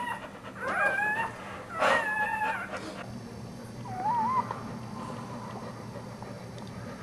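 A dog whimpering: two high, wavering whines in the first three seconds, then a short one about four seconds in.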